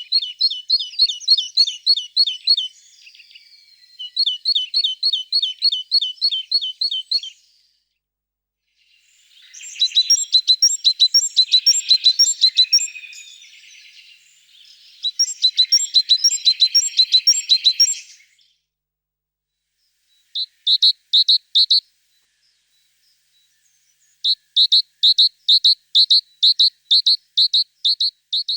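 A bird chirping in rapid runs of about four high chirps a second, each run lasting a few seconds, with clean silent gaps between runs.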